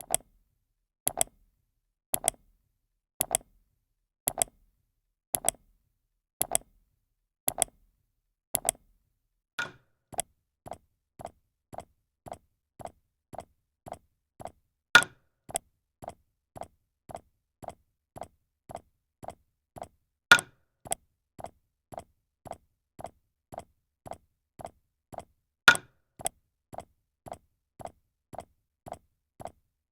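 A steady series of short clicking sound effects, like a clock ticking: about one double click a second at first, then about two clicks a second, with every tenth click louder and sharper.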